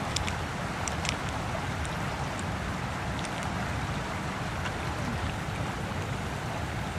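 Steady rushing outdoor noise, heavy in the low end, with a few faint sharp clicks in the first second as hands handle a fire-starter packet and lighter.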